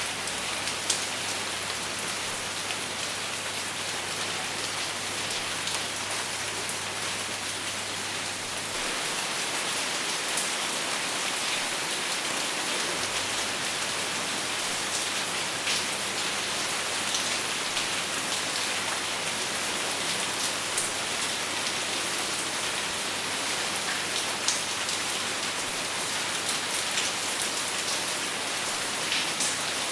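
Steady rain without thunder, with scattered single drops ticking through the constant hiss. The rain gets slightly louder about nine seconds in.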